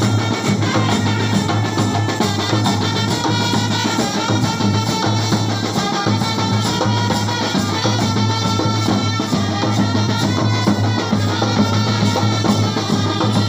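Kerala band set playing live: a melody carried over a busy beat of bass drum and snare drums, loud and continuous.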